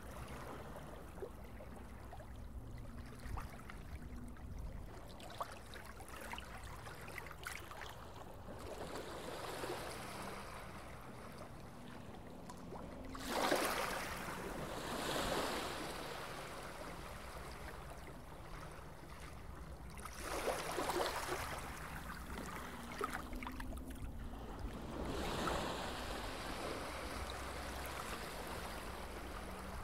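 Steady rushing, water-like ambience with a low hum underneath. It swells louder for a second or two several times in the second half.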